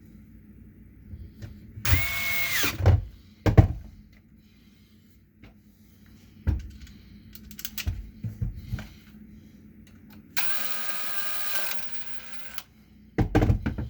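Cordless drill run twice in short bursts, its motor whining and spinning down as the trigger is released, the second run longer and lower in pitch. Clunks of the tool being handled fall between the runs and near the end.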